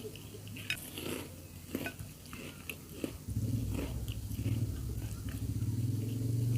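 Close-miked eating: biting and chewing with short wet clicks and the odd tap of cutlery on a dish. About three seconds in, a low steady hum comes in and grows louder.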